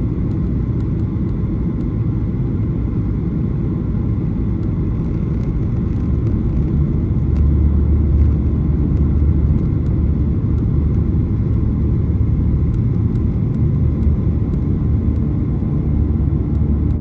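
Cabin noise of a Boeing 737 jet airliner landing, heard from a seat over the wing: a steady low rumble of the engines and airflow, growing a little louder about seven seconds in.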